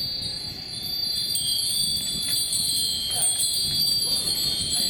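A cluster of Japanese wind bells (fūrin) ringing in the wind, many overlapping high ringing tones that sound continuously.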